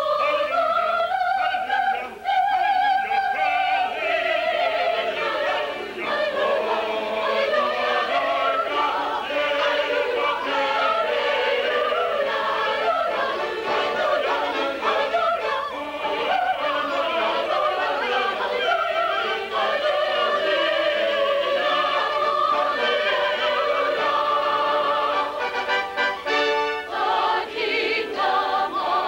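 A choir singing a sustained piece with vibrato, backed by musical accompaniment, as a stage-show number.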